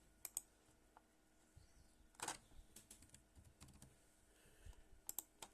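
Sparse, faint keystrokes and clicks on a computer keyboard, a few taps spread out and a quick run of three near the end, over near silence.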